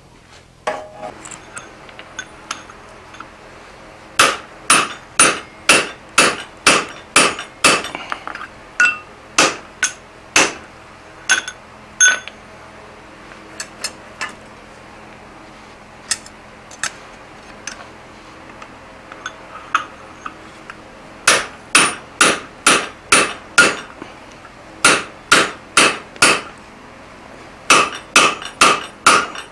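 Hand-hammer blows on a glowing block of 4140 steel on an anvil, each with a short metallic ring. They come in runs of about two strikes a second, broken by pauses, as the punched eye of a hammer head is stretched around a round punch.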